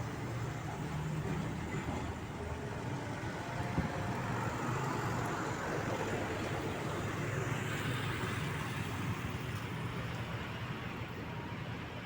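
Truck engines running in steady road traffic noise, with one short knock about four seconds in.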